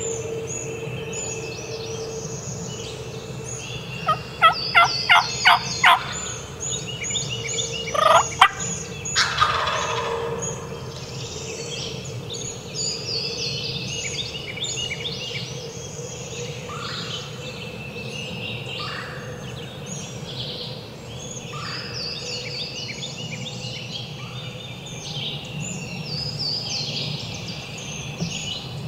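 Wild turkey gobblers gobbling: a rapid rattling gobble about four seconds in and another short gobble around eight to nine seconds in, over steady songbird chirping in spring woods.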